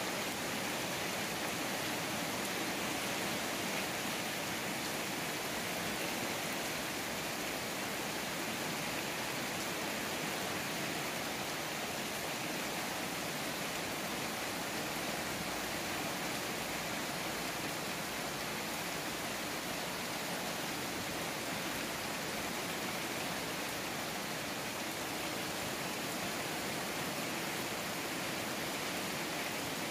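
Steady rain falling on a wet paved yard and potted plants, an even hiss that does not let up.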